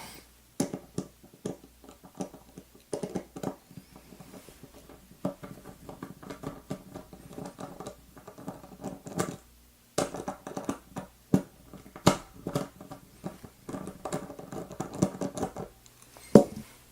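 Metal parts of a MIWA U9 disc lock clicking, tapping and scraping as it is handled and taken apart, irregular taps with a short metallic ring after some.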